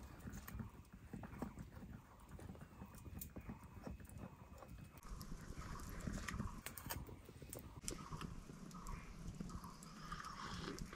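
A dog gnawing on a bone: faint, irregular crunches and clicks from its teeth on the bone.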